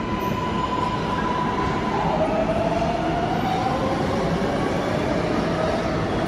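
R188 subway train on the 7 line pulling out of an underground station and moving away into the tunnel: a steady rumble of wheels and motors, with a whining tone that slowly falls in pitch over the last few seconds.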